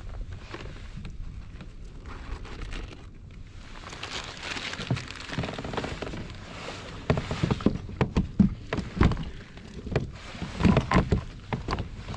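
Gear being handled aboard a small boat: scattered knocks and clatters, thickest in the second half, over a steady low rumble of wind on the microphone.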